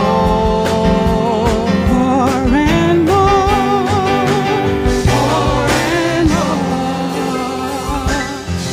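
A women's church praise team singing a gospel song in harmony into handheld microphones, holding long notes with vibrato, over live band accompaniment with drums.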